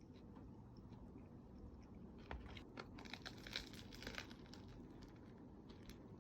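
Faint crackly crunching of a crusty baguette sandwich being bitten and chewed, densest for about two seconds in the middle.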